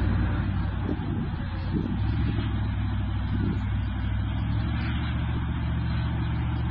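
Jeep Wrangler engine running steadily as the Jeep crawls slowly up a steep steel ramp.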